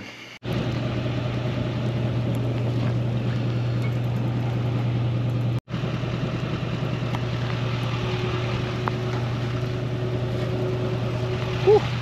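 A machine running steadily, with a constant low hum under an even rushing noise. It drops out for an instant twice, and a short squeak comes near the end.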